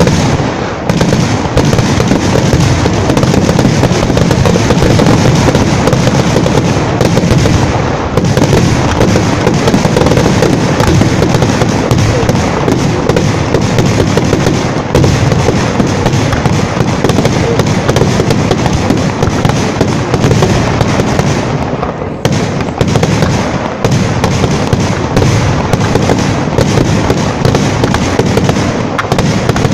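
Fireworks display: a continuous, dense barrage of aerial shells launching and bursting, their bangs and crackling running together. Loud throughout, easing only briefly about 22 seconds in.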